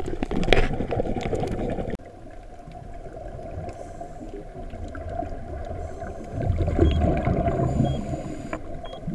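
Muffled underwater rumbling and gurgling of scuba divers' exhaled regulator bubbles. It drops off sharply about two seconds in, builds again and swells from about six and a half to eight seconds.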